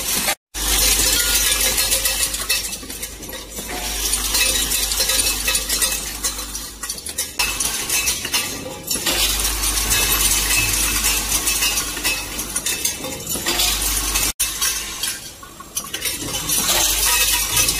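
Vibratory bowl feeders of an automatic screw counting and packing machine running: a dense, continuous clinking and rattling of metal screws and fasteners over a low hum that comes and goes. The sound breaks off briefly twice, near the start and about two-thirds of the way through.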